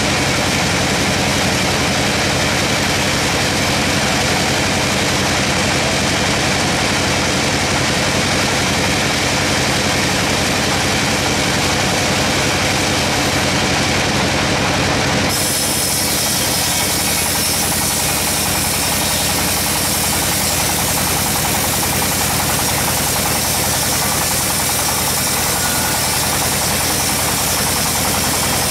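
Large sawmill log band saw running, a loud steady mechanical noise. About fifteen seconds in the sound abruptly turns hissier and brighter.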